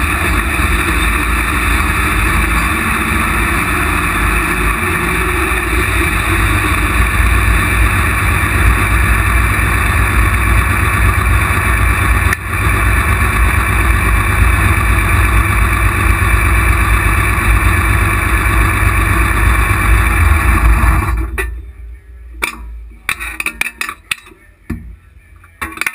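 Pulling tractor's engine, heard up close from the roll cage, running loud and steady with a brief dip near the middle, then cutting off about 21 seconds in. A few metal clanks and knocks follow once it stops.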